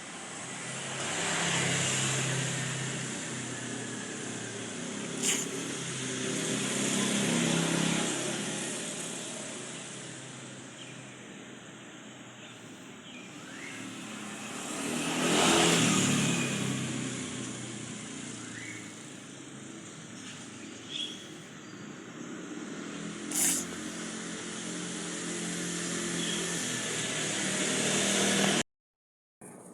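Road traffic: several vehicles pass, each swelling up and fading away, the loudest about fifteen seconds in. A few sharp clicks come through, and the sound drops out suddenly near the end.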